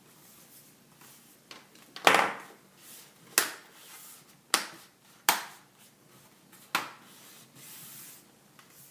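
Sharp clicks and knocks of hard plastic as laptop parts are handled, about five separate knocks a second or so apart, then a soft rub near the end.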